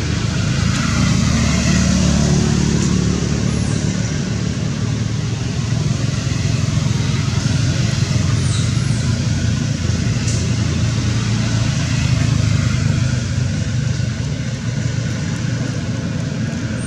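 Steady low rumble of background noise, with a few brief high chirps over it.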